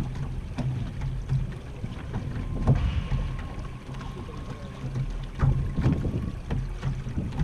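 Wind buffeting the microphone and water slapping and gurgling against the hull of a small Weta trimaran sailing slowly, with a few short knocks. A faint steady whistle runs for a few seconds midway.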